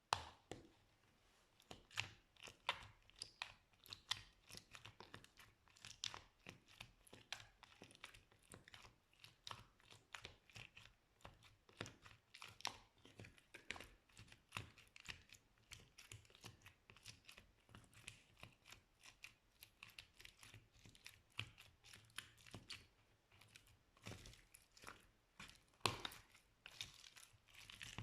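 Slime being squeezed and poked by hand, giving a dense, irregular stream of small crackling pops and clicks.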